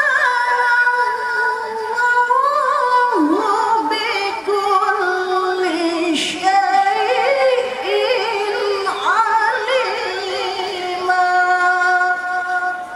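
A female qari'ah's solo voice chanting through a microphone and loudspeakers: long held notes decorated with fast, wavering melismatic turns and slides, with a short breath near the middle.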